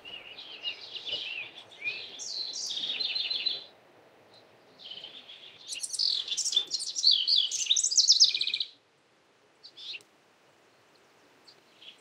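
House wren singing: two long songs of rapid, high-pitched notes, the second starting about five seconds in, followed by a single short note.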